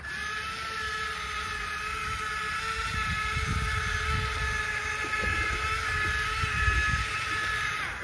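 Electric motors of remote-control toy excavators whining steadily as one drives on its tracks and moves its arm, with a low rumble from about three seconds in to seven.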